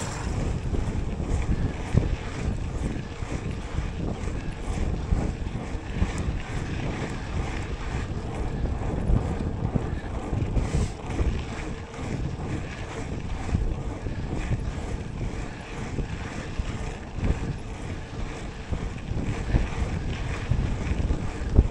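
Wind buffeting the microphone of a mountain bike being ridden, with the rumble of tyres on the trail and frequent small rattles and knocks from the bike.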